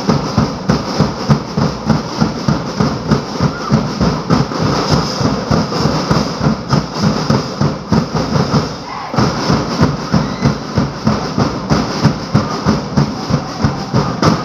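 Drums beating a fast, steady rhythm for a street dance, about three beats a second, with a brief break about nine seconds in, then stopping at the end.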